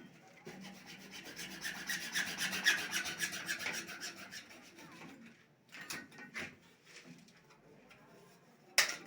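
Hand tool rasping in fast, even strokes for about five seconds, then a few separate sharp knocks, the loudest near the end.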